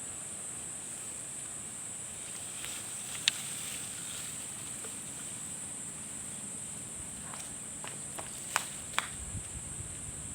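Steady high-pitched insect drone, like crickets or cicadas, with a few sharp clicks: one about three seconds in and two close together near the end.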